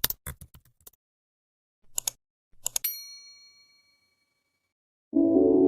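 Computer keyboard typing clicks that stop about a second in, two more clicks, then a single bright bell-like ding that rings out for about two seconds. Music with sustained keyboard notes starts near the end.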